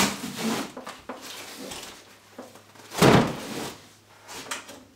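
Things being moved around inside an open refrigerator as a box is put away: a knock at the start, light rustling and scraping, and one heavy thud about three seconds in.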